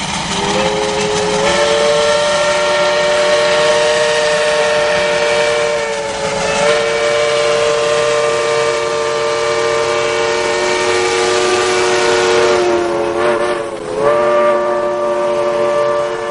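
Lima Shay geared steam locomotive's whistle blown in one long chord of several notes, over the passing train's running noise; the pitch sags briefly about fourteen seconds in, then holds again.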